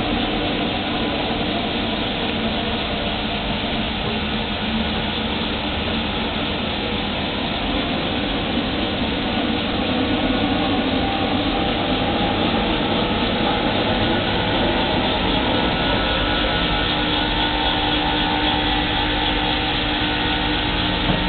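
Litz LV1100 vertical milling machine running: a steady mechanical hum and hiss with several held tones, which shift about three-quarters of the way in.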